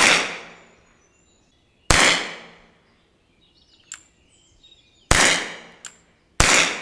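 Four shots from an R&R 6mm Flobert revolver, spaced unevenly about one to three seconds apart, each a sharp crack trailing off in an echo, with faint clicks between shots.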